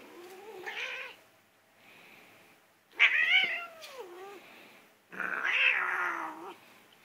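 Domestic cat yowling three times in long, wavering meows; the middle one is the loudest. The cat is annoyed at being pestered.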